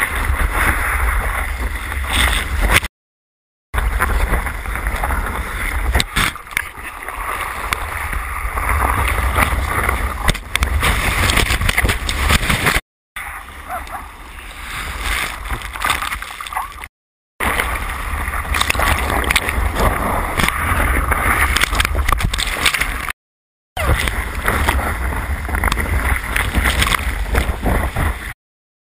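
Ocean water sloshing and splashing around a camera riding on a bodyboard in the surf, over a steady low rumble. The sound cuts out completely for a moment about five times.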